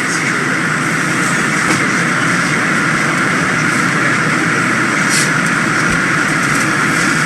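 MBTA Red Line subway train running along the track: a steady, loud rumble and rushing noise that holds without a break.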